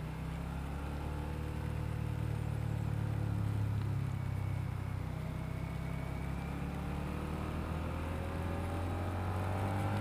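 Suzuki SFV650's V-twin engine running under way on a motorcycle ride. Its pitch climbs slowly over the second half as the bike picks up speed, over a steady hiss of wind and wet road.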